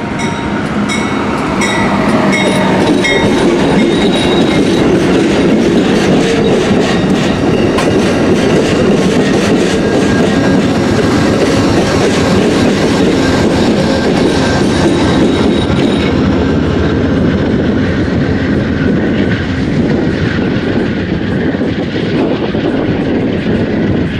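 Amtrak GE P42DC Genesis diesel locomotive and its passenger train passing close by: a steady loud rumble with wheels clicking over the rail joints. The locomotive horn's last held notes die away in the first three seconds.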